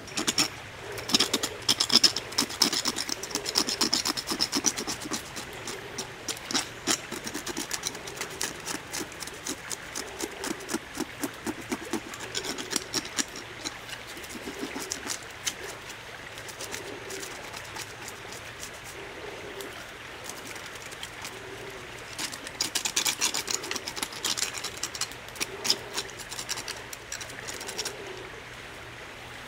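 Knife blade scraping the scales off a scalded crocodile's skin: quick short scraping strokes in runs, heaviest near the start and again near the end.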